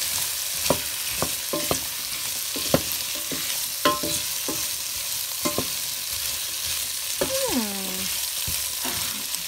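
Diced potatoes frying in oil in a stainless steel pan, with a steady sizzle and a utensil knocking and scraping against the pan every second or so as they are stirred.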